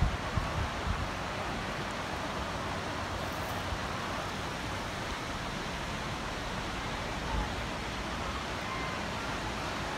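Seaside ambience: a steady wash of surf with the faint murmur of a crowded beach. A few low thumps hit the microphone near the start and once about seven seconds in.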